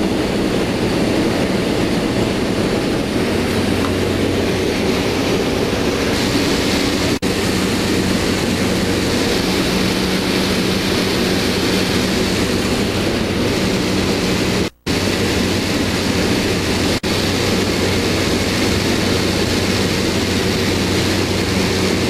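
Jump plane's engine running steadily, a loud, even drone with a low hum, heard from inside the cabin. The sound cuts out briefly three times, longest about two-thirds of the way through.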